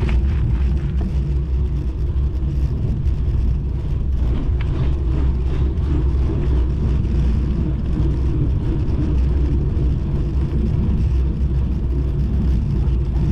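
Wind rumbling steadily on a GoPro's microphone while riding a bicycle, with road noise underneath.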